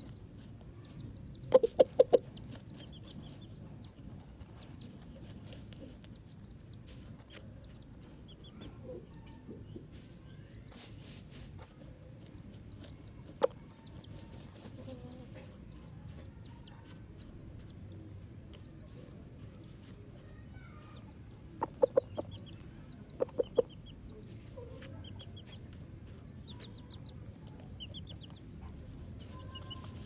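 Chickens clucking in short loud bursts of three or four notes, about two seconds in, once near the middle, and twice in quick succession about three-quarters of the way through. Behind them runs a steady stream of high, thin peeps from a chick.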